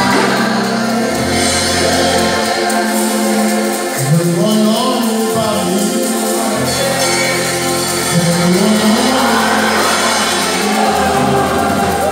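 Gospel worship song performed live: a lead singer on a microphone with a choir singing along over a band with a held bass line.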